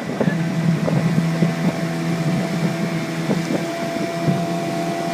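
Mariner 15 hp outboard motor running steadily, driving a jon boat, with short irregular knocks over its even engine note.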